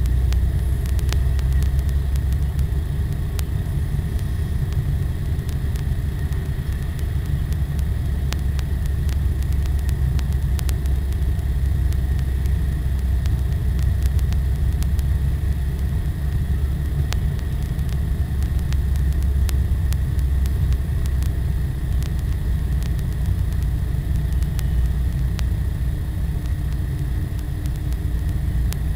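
Car driving at steady speed, heard from inside the cabin: a constant low rumble of engine and tyre road noise.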